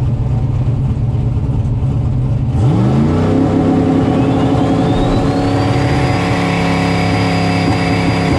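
Turbocharged Dart LS V8 of a drag-racing Foxbody Mustang, heard from inside the car: it idles, then about two and a half seconds in the revs climb and are held steady, loaded against the transbrake at the starting line. A high turbo whine rises over the next few seconds and then holds as boost builds.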